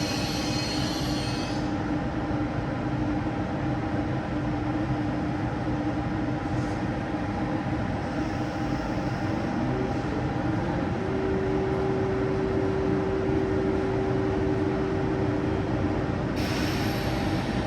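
SNCF TGV inOui high-speed train running with a steady rumble. A steady tone in it rises slightly in pitch about ten seconds in and then holds. A high hiss dies away at the start and comes back near the end.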